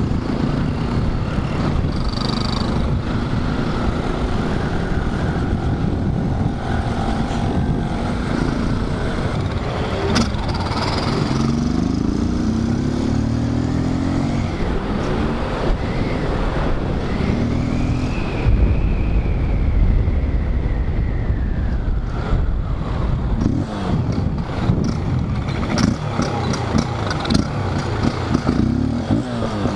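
Motorcycle engine running while riding, its pitch rising and falling as the rider accelerates and eases off, with wind rumbling on the microphone, heaviest about two-thirds of the way through.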